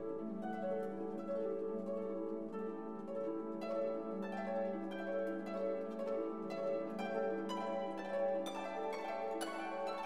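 Background instrumental music: plucked string notes over a held low note, with the plucked notes coming more quickly from a few seconds in.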